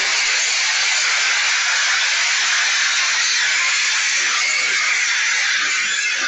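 A loud, steady, high hiss with no pitch or rhythm to it.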